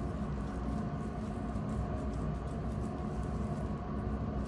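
A steady low hum, with faint soft clicks of dissecting scissors snipping tissue scattered through it.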